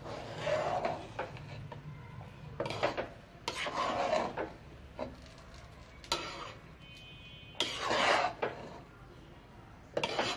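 Flat wooden spatula scraping and turning thick cooked rice in a large metal pot, in short strokes every second or two. It is the final mixing of bhuna khichuri that is just done.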